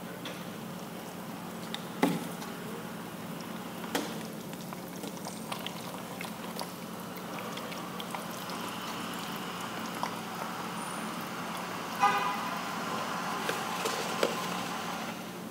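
Wooden stir stick mixing dental alginate and water in a plastic mixing cup: scraping and stirring against the cup, busier in the second half, with a few sharp knocks of the stick or cup. A steady low hum runs underneath.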